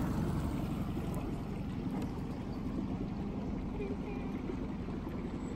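Small outboard motor on an inflatable dinghy running steadily under way, with water washing past the hull.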